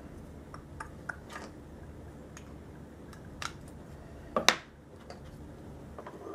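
Light clicks and taps of flat black plastic boat-stand pieces being handled and slotted together, with one louder sharp snap about four and a half seconds in.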